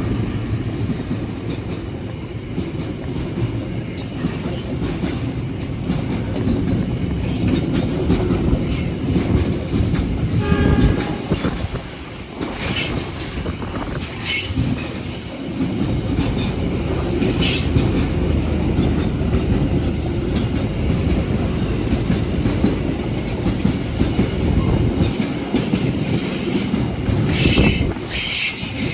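Container freight train rolling past, a steady heavy rumble of wagons on the rails with clacks and brief high-pitched squeals from the wheels now and then.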